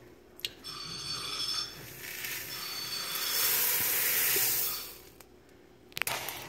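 Rice Krispies cereal being poured from a plastic bowl into a pot of melted marshmallow, a dry rushing hiss that grows loudest toward the end of the pour and stops about five seconds in.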